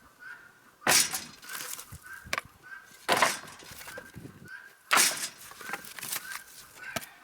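Sharp cracks and clatter of slab wood being worked into firewood, three loud strikes about two seconds apart with smaller knocks between.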